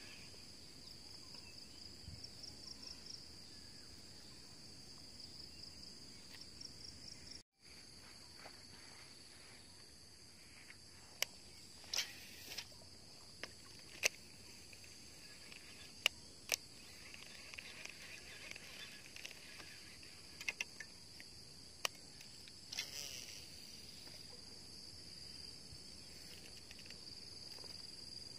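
Steady high-pitched chirring of insects, crickets or similar, in the waterside vegetation. It cuts out for a moment about seven seconds in. From about eleven seconds to twenty-three seconds there are a dozen or so sharp clicks.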